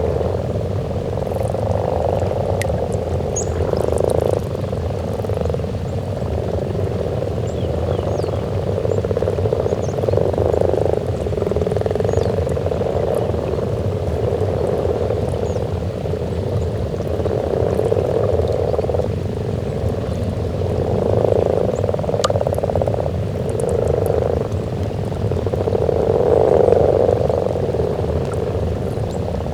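Breeding chorus of many common frogs at a spawning pond: overlapping low croaking that runs on continuously, swelling and easing every few seconds, over a steady low rumble.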